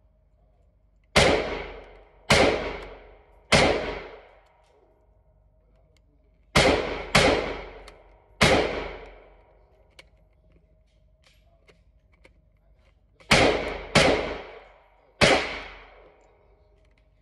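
Nine gunshots in three strings of three, each shot echoing for about a second in an indoor shooting range. Faint clicks can be heard between the strings.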